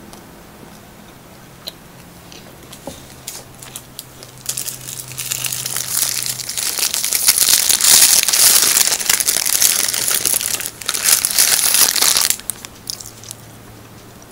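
A paper siopao bag crinkling and tearing as it is unwrapped by hand to get at the steamed bun. The crinkling starts a few seconds in, grows loud, and stops abruptly about two seconds before the end.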